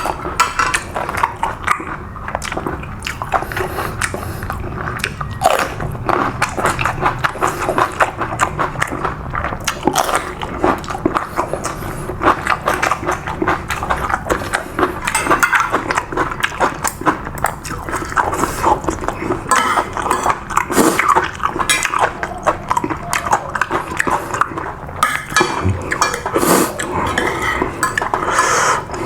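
Person eating close to the microphone: continuous chewing and biting with clinks of a spoon on a plate.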